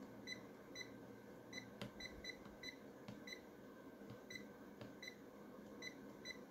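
Key beeps from a Triplett 9065 handheld multimeter, a rebadged UNI-T UT181A. Its arrow buttons are pressed repeatedly, giving a dozen or so short, high beeps at uneven intervals, with a few faint clicks.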